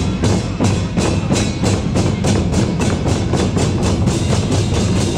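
Drums beating in an accelerating rhythm, the strokes quickening into a near-roll about four seconds in.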